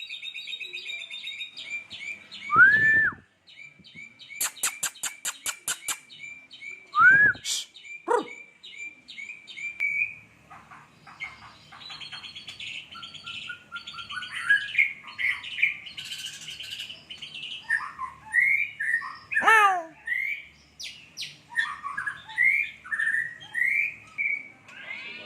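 A murai hutan singing a varied song filled in with mimicked lovebird and Eurasian tree sparrow calls. For the first ten seconds it runs a quick series of short chirps with a few loud upswept whistles, then breaks into a busier mix of trills, chirps and fast sliding notes.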